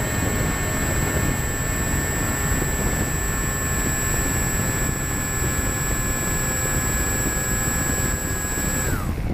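RC aircraft's motor and propeller running at steady speed, heard from the onboard camera, with a thin high whine over heavy wind rush on the microphone. Near the end the pitch falls as the throttle is cut for landing.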